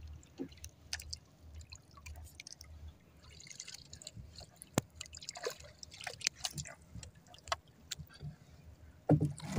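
Paddle stirring calm sea water beside a small outrigger boat, with scattered small splashes and drips of water.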